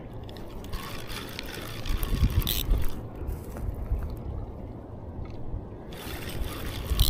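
Low rumbling noise with water sounds and a few scrapes as a hooked asp is fought on rod and reel, with louder scuffs about two and a half seconds in and again near the end.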